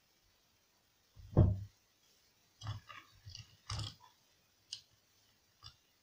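A dull thump about a second and a half in, then a cluster of light plastic knocks and clicks and two faint clicks near the end: an opened TV remote's case and circuit board being handled and set down on a table.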